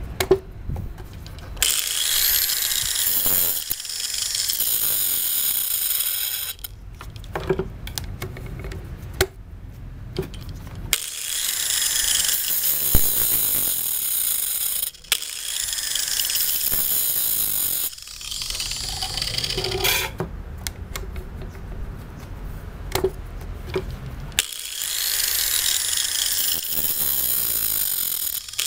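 Angle grinder disc grinding the cutters of a chainsaw chain on its bar, in about five passes of a few seconds each with a harsh, high hiss. The pauses between passes hold sharp clicks and knocks.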